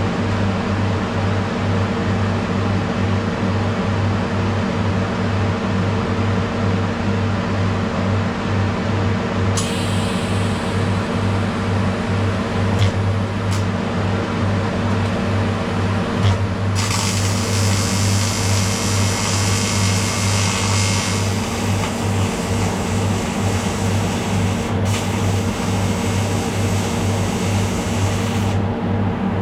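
TIG welder working on aluminium: a steady low mains buzz throughout. A high hiss from the arc comes in about ten seconds in, grows louder from about seventeen seconds, and cuts off near the end.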